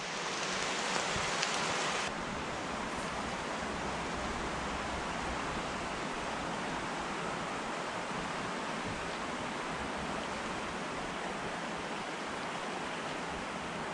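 Mountain brook running over rocks: a steady rush of water. About two seconds in, the rush turns a little softer and duller and stays even.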